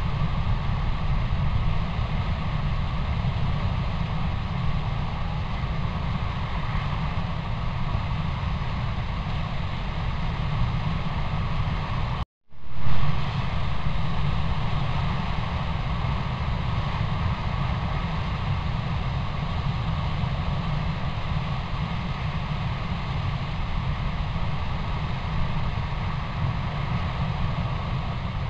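Steady rumbling hiss of a trail camera's recording noise, with no distinct animal calls. About twelve seconds in, it cuts out for a moment and comes back with a loud pop where one camera clip gives way to the next.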